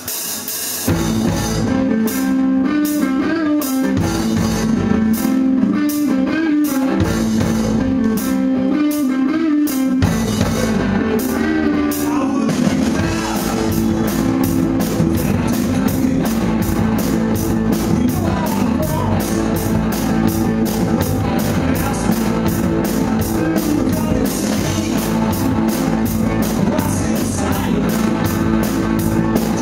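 Live rock band starting a song: electric guitar and drums come in about a second in, and the low end fills out about ten seconds in as the full band plays on.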